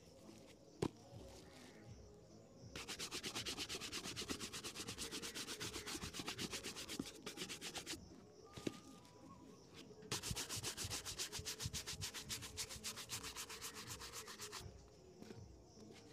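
Bristle shoe brush buffed in rapid back-and-forth strokes over a polished leather shoe, in two long runs of several strokes a second, buffing the polish to a shine. A sharp tap about a second in, and another between the runs.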